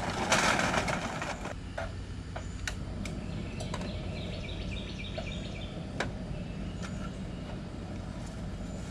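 Charcoal briquettes poured rattling out of a paper bag for about the first second and a half, then scattered clicks and knocks as metal gear is handled, over the steady low hum of an air conditioner. Birds chirp a few seconds in.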